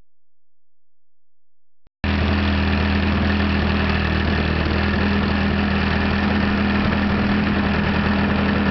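Near silence, then from about two seconds in a Desert Aircraft DA-100 twin-cylinder two-stroke petrol engine on standard canister mufflers idles steadily, turning a 28x12 propeller on a large model aerobatic plane.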